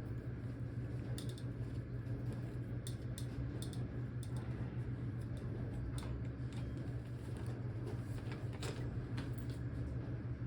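Scattered small clicks and ticks of hand tools and brake parts being handled as a bicycle's brakes are disconnected, over a steady low hum.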